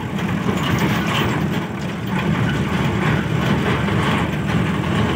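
Tata Super Ace mini truck's diesel engine running at low speed, heard from inside the cab as it drives along a bumpy dirt farm track, with light rattles from the cab.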